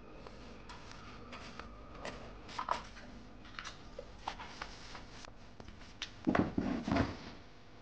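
A kitten's paws and claws skittering on a foam play mat and a cardboard scratcher: scattered light taps and scrapes, then a cluster of louder thumps and scratches about six seconds in as it pounces at the scratcher.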